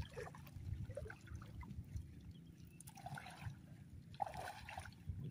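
Shallow seawater splashing and trickling as a wet fish net full of fish is handled by people wading, over a low rumble.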